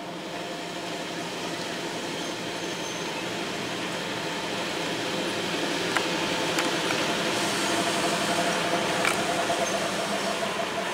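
EP05 electric locomotive creeping along at shunting speed, its motors and blowers humming and growing louder as it comes closer, with a few sharp clicks from the running gear.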